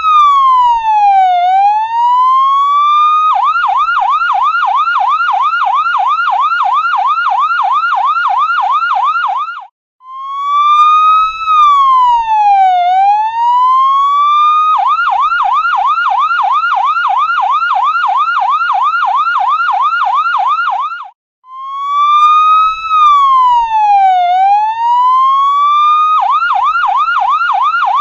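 Electronic ambulance siren in a repeating cycle: a slow falling-then-rising wail of about three seconds, then a fast warbling yelp of about three pulses a second for some six seconds. It breaks off suddenly twice and starts over.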